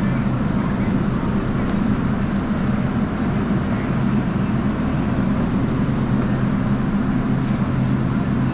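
Steady, loud mechanical hum of refrigeration equipment, with a few faint clicks of eggs being set into molded-pulp egg cartons.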